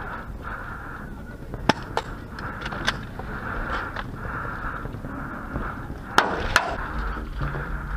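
Airsoft guns firing single shots: three sharp snaps about two to three seconds in and a louder pair a little after six seconds, over steady rustling movement.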